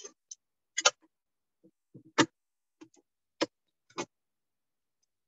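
Handling noise: about nine irregular sharp clicks and knocks, short and separate, the loudest about a second and about two seconds in.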